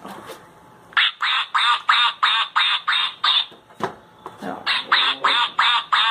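Sound button of a children's duck sound book playing a recorded duck quacking: a quick run of about three quacks a second, a pause of about a second, then a second run.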